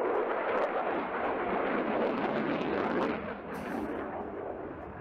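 Jet noise from the Eurofighter Typhoon's twin Eurojet EJ200 engines as the fighter pulls a hard 9G turn. The noise fades about three seconds in as the jet draws away.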